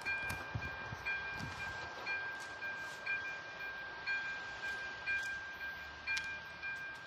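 Electronic bell of an AŽD 97 level-crossing warning signal ringing, about one strike a second over a steady high tone: the crossing is warning of an approaching train.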